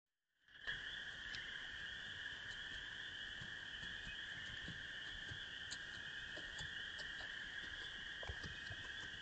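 A steady night chorus of frogs, two continuous high-pitched drones at different pitches, starting about half a second in, with faint scattered ticks.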